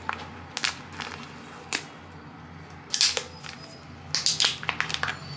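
Plastic product pouch being crinkled and torn open by hand: a run of irregular sharp crackles, bunched into quick clusters about three seconds in and again near the end.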